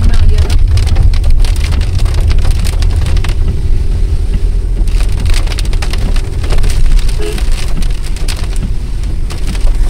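Heavy rain falling on a moving car's roof and windshield, heard inside the cabin as many sharp drop hits over a steady low rumble from the car driving on the wet road.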